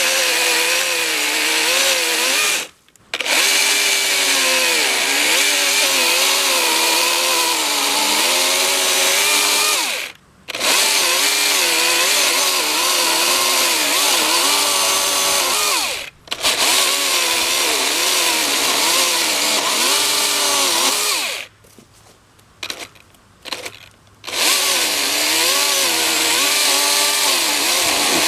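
Husqvarna 120i battery chainsaw cutting through a fallen tree. Its motor whine dips and recovers in pitch as the chain bites into the wood. It stops four times, three times briefly and once for about three seconds near three-quarters of the way through, with a few small knocks in that longer pause.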